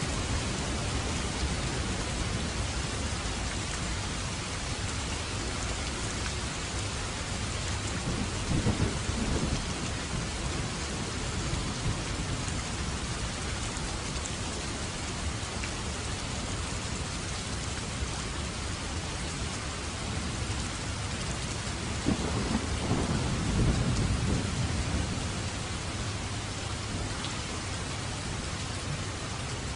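Steady rain falling, with two low rolls of thunder, one about nine seconds in and a longer one about two-thirds of the way through.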